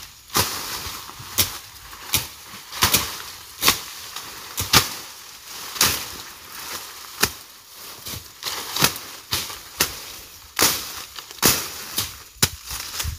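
Machete chopping and slashing through undergrowth as brush is cleared by hand: a string of sharp chops, roughly one a second at uneven spacing.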